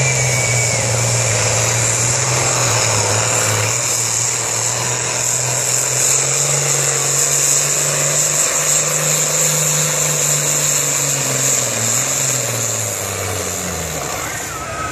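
International Harvester pulling tractor's engine running flat out under load as it drags a weight-transfer sled, with a steady high whine above the engine note. Near the end the engine note falls as it bogs down under the sled's weight.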